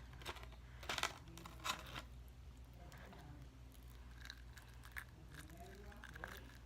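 Close-miked crisp crackling and tearing of fried chicken's crust, with a few sharp crunches in the first two seconds, then only faint small crackles.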